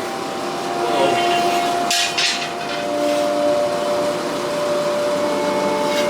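Steady whirring and rushing of workshop machinery with tones that shift in pitch, and a few sharp metallic knocks about one to two seconds in.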